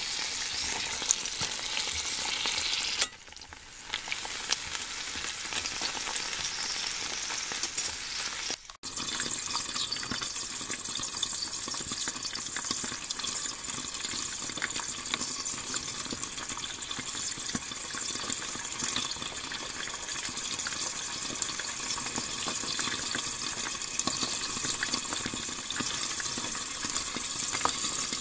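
Mini sweet peppers frying in hot olive oil in a pan: a steady sizzle with fine crackles. The sizzle dips briefly twice, about three seconds in and again near nine seconds.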